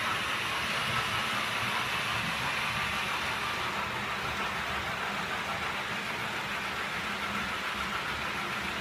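H0-scale model train running on the layout's track: the steady whir of the locomotive motor and the hiss of the wheels rolling on the rails.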